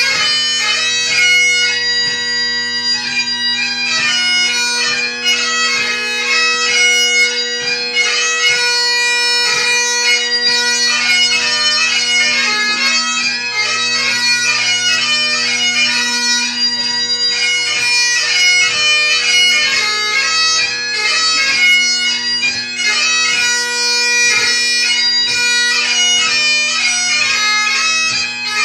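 A highland bagpipe played solo: a quick chanter melody broken by many short grace notes, over the steady hum of the drones.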